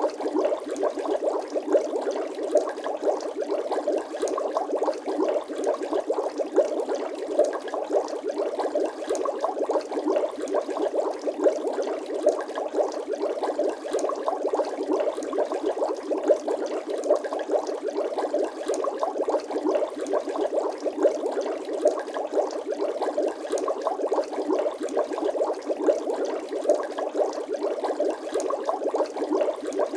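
Continuous bubbling and gurgling sound effect: a dense, steady stream of small liquid pops and blips with no pauses.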